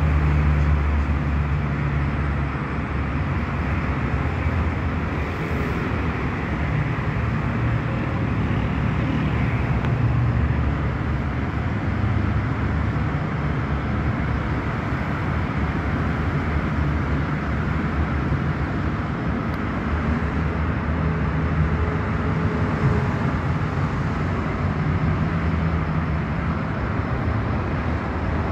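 Steady low rumble of road traffic, unbroken and even, with no single event standing out.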